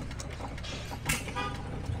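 Antique stationary gas engine running over a low steady rumble, its valve gear and igniter linkage clicking, with a sharp click about a second in. A short tooting tone follows just after the click.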